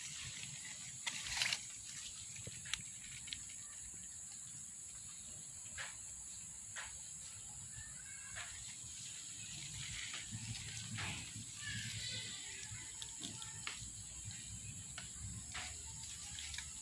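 Small splashes and rustles from a hand moving in shallow, muddy swamp water among leaves and twigs, with scattered light clicks, over a steady high-pitched background hum.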